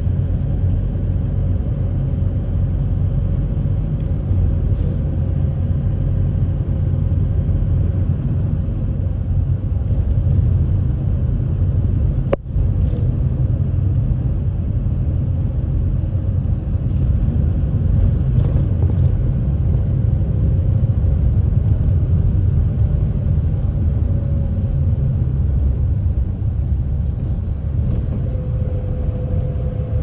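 City route bus running along a mountain road, heard from inside the passenger cabin: a steady low rumble of engine and tyres with a faint held whine.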